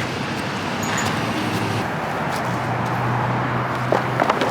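Road traffic going past: a steady rush of tyres and engines, with a low engine hum from a vehicle close by.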